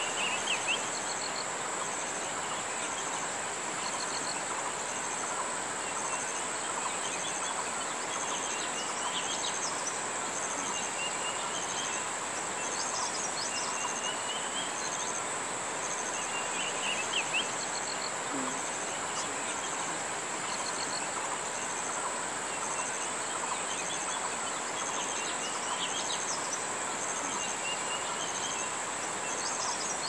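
Barbets calling in the background, short calls every few seconds, over a steady high-pitched insect drone.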